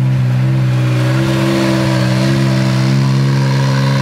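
Can-Am Maverick X3's turbocharged three-cylinder engine idling steadily, its pitch lifting slightly about a second in and then settling.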